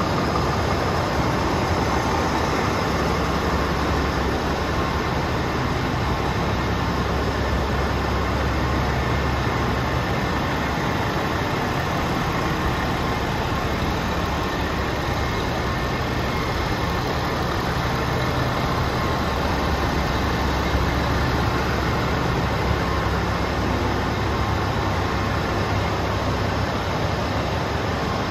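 Scania G400's 13-litre straight-six diesel idling steadily.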